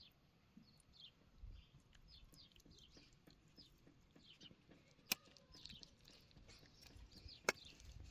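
Faint chirping of small birds: many short, falling chirps. Two sharp clicks stand out, about five seconds in and again near the end.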